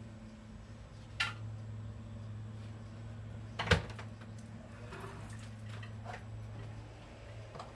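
Items being moved and set down on a desk: a knock about a second in, a louder knock near four seconds, then a few lighter clicks, over a steady low hum.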